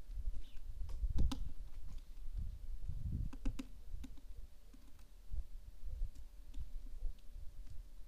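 Wind buffeting an outdoor camera microphone in an irregular low rumble, with scattered sharp clicks, the strongest about a second in and a cluster about three and a half seconds in.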